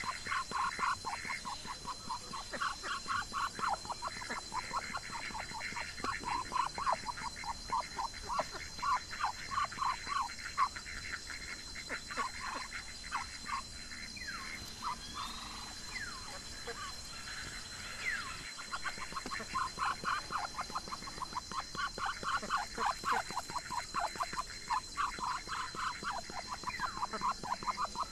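Foraging ducks giving rapid runs of short, soft quacks, several a second. The run thins out for a few seconds midway, with a few thin sliding chirps, then picks up again.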